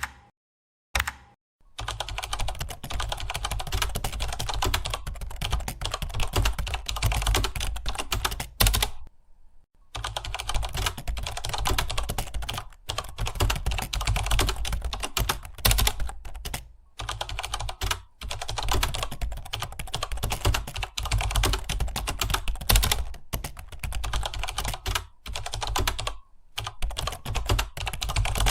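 Several computer keyboards being typed on at once, a dense stream of rapid key clicks with a low thud under them. It breaks off briefly a few times: near a third of the way in, around the middle, and near the end.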